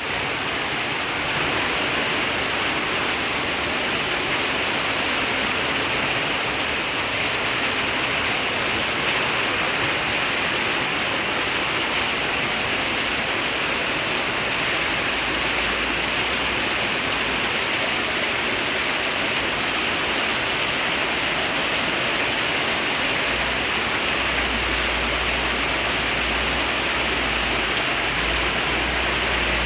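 Heavy rain falling, a steady dense hiss. A low rumble comes in around the middle and again from about three quarters of the way through.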